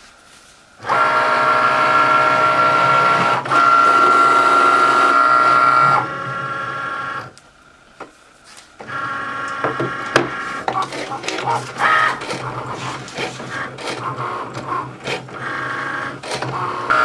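Cricut cutting machine motors whirring as the machine cuts stencil film on its mat. A steady whine starts about a second in, pauses briefly around seven seconds, then comes back as choppier stop-and-start movements with small clicks.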